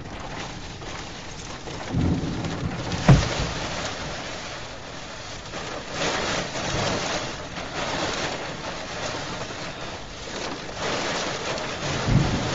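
Heavy rain and wind of a tornado-producing thunderstorm beating on a car, heard from inside the car: a steady rushing that swells in gusts, with low thuds about two and twelve seconds in and a sharp knock about three seconds in.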